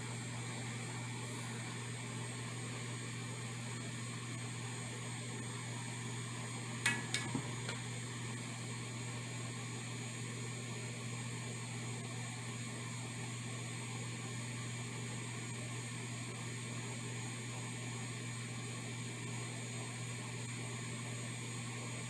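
Steady low electrical hum with a hiss while solder wick is heated against a pad, broken about seven seconds in by a quick run of three or four small clicks.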